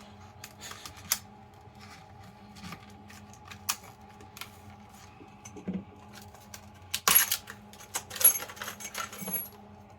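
Scattered clicks and taps of a metal hidden-shackle padlock and its keys being handled, then a jangle of keys with metallic clinks and ringing about seven seconds in as the lock is worked open.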